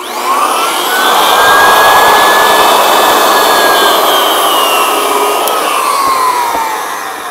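Floor edger sander switched on with its pad on 60-grit drum sandpaper dusted with powdered sawdust, a test run to show where the pad cuts. The motor whine rises quickly as it spins up, runs steady and loud with a gritty sanding hiss, then falls away from about five seconds in as it winds down.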